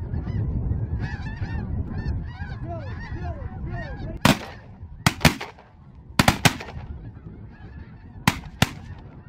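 A flock of snow geese calling overhead, many short honking calls at once. From about four seconds in, shotguns fire about eight quick blasts in groups of one to three as the hunters shoot into the flock.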